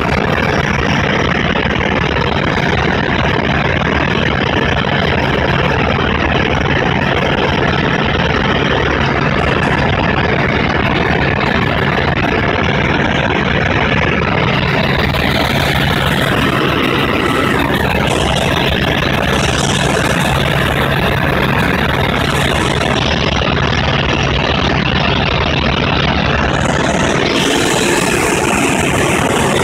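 Helicopter cabin noise in flight: the engine and rotor make a loud, steady drone with a low hum, heard from inside the cockpit. A brighter hiss rises for stretches in the second half.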